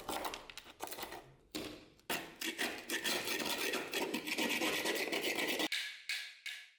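Thick rust being scraped off old steel by hand, a run of rasping strokes with short pauses that stops near the end.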